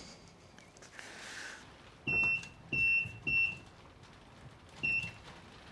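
A workshop press being worked to straighten a steel flange on a car's radiator support cradle: four short high-pitched squeaks, each with a dull knock under it, the last one after a short pause.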